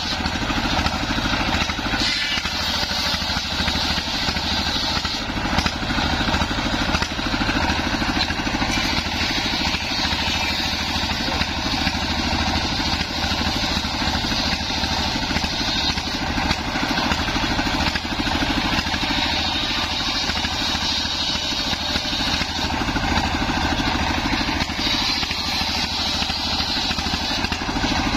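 Homemade circular sawmill, its large blade belt-driven by a single-cylinder diesel engine, running steadily while it rips a waru log lengthwise. The hiss of the cut swells several times as the timber is pushed through.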